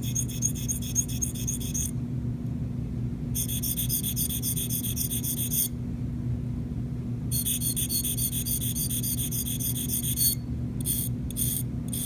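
A sharpening stone scraping up and down along the cutting edge of a Columbia 13/14 dental curette in rapid strokes. There are three runs of strokes, each about two to three seconds long with short pauses between, then a few short single strokes near the end.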